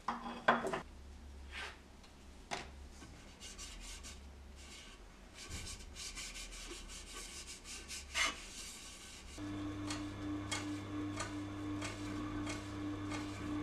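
A few knocks and scrapes of a carving tool on wood, then rubbing and handling at a wet-grinder sharpening machine. About nine seconds in, the sharpener's motor starts and runs with a steady, gently pulsing hum while a carving tool is held against its leather honing wheel.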